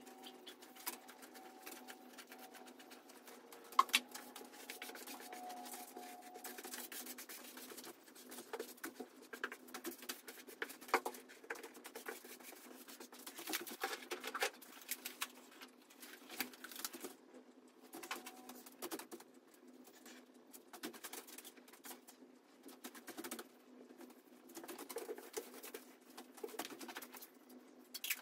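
Sped-up workshop sounds from hand work: a quick, uneven patter of small clicks, taps and rustles, with a sharper knock about four seconds in and another about eleven seconds in.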